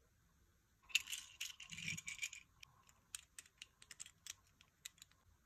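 Small plastic toy figures handled between the fingers. About a second in there is a burst of rattling and rustling, then a string of separate light clicks.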